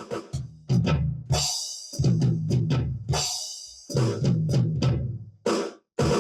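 Drum kit playing along with music, with kick and snare hits, chopped into short pieces with sudden breaks between them.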